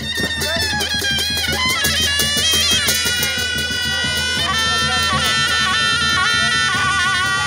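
Traditional folk music: a reedy wind instrument plays an ornamented melody over a steady drone, with fast drumming beneath.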